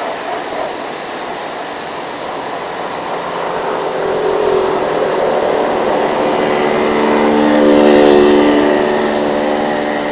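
Diesel engine of a JCB JS205SC crawler excavator working under load as it digs, with a steady engine note that builds through the middle and is loudest late on before easing off a little.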